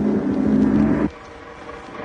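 Music: a held low note or chord sounds steadily, then cuts off abruptly about a second in, leaving only faint hiss.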